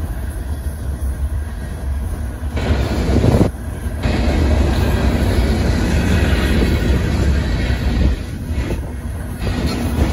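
Freight cars of a Union Pacific manifest train rolling past: a steady rumble of steel wheels on the rails with some clacking, loudest about three seconds in.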